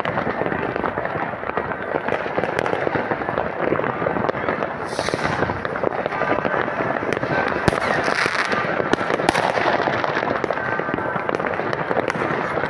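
New Year's Eve fireworks and firecrackers going off all around in a dense, unbroken crackle of bangs and pops, with a few louder cracks and hissing bursts about halfway through.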